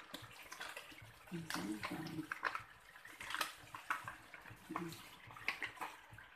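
Plastic-foil sachet of coconut cream powder crinkling and rustling as it is shaken and squeezed to empty the powder into a ceramic cup, with scattered sharp crackles throughout.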